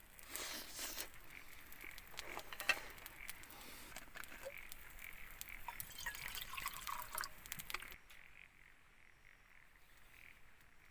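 Frogs croaking in a continuous chorus of short, repeated calls. Scattered clicks and crackles over the first eight seconds stop abruptly.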